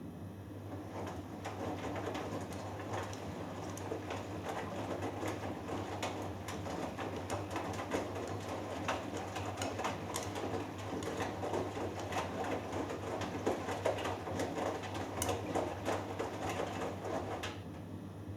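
Hoover Dynamic Next DXA610IW3 front-loading washing machine tumbling a 3 kg load of wet cottons: the drum turns with the laundry sloshing and patting against it, then stops near the end. A steady low hum continues after the drum stops.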